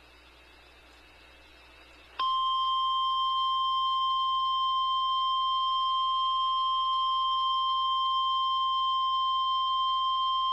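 Faint hiss, then about two seconds in the NOAA Weather Radio warning alarm tone begins: a loud, steady single tone of about 1050 Hz, held unbroken. It is the attention signal ahead of a severe thunderstorm warning.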